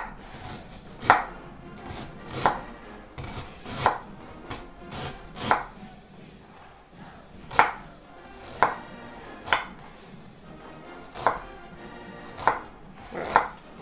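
A knife slicing fresh ginger root into thin coins on a wooden cutting board: about a dozen sharp knocks of the blade on the board, unevenly spaced, roughly one a second.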